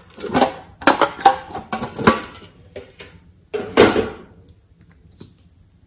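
A hard plastic compact case being handled and clicked open: a quick run of sharp clicks, knocks and rattles, then another short burst of plastic handling noise about four seconds in.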